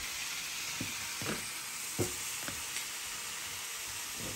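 Sliced sausage and smoked meats sizzling steadily in a dry frying pan, with a few light knocks.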